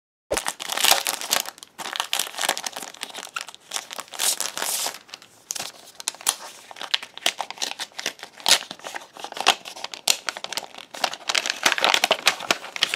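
Crinkling and crackling of a plastic-sleeved paper mailer envelope being handled and opened, its sticker seal peeled back; the dense, irregular crackles go on without a break.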